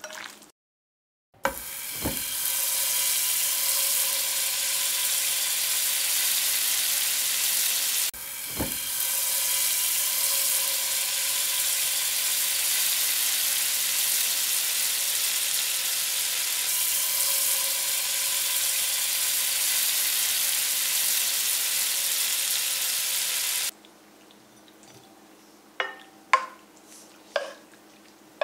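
Squid, carrot and onion sizzling steadily as they stir-fry in a hot pan, with a brief break about eight seconds in. Near the end the sizzling stops and a few light clicks follow.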